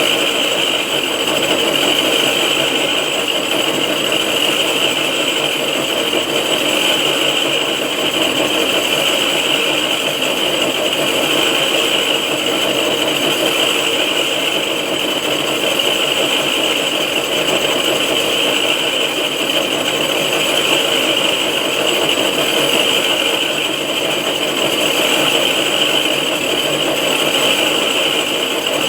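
6Р12 vertical knee-type milling machine running steadily while face-milling a cylinder head, a constant machining whir with a strong high hiss.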